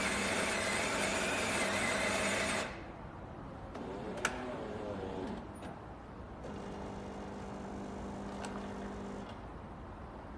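Fully automatic bean-to-cup espresso machine making an Americano: its built-in grinder runs loudly and stops after about two and a half seconds, then a click and a quieter motor whir follow, and the pump hums steadily for about three seconds near the end.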